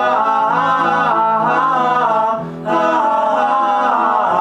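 A wordless sung "ah" refrain over acoustic plucked-string accompaniment, in two long held phrases with a brief break between them.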